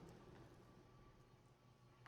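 Near silence: a faint low rumble of a truck engine fading away in a parking structure, with a faint steady hum underneath.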